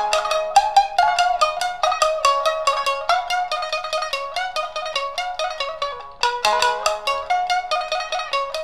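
Tsugaru shamisen playing rapid struck notes, with a brief break about six seconds in before the playing picks up again.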